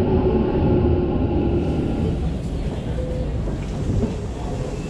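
Subway car running noise as the train comes to a stop: a steady low rumble with a motor whine that fades out about a second and a half in, leaving a quieter hiss.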